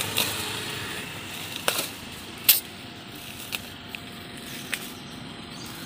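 Packaging being bitten and torn open with the teeth: scattered crinkling with several sharp snaps and rips, the loudest about two and a half seconds in.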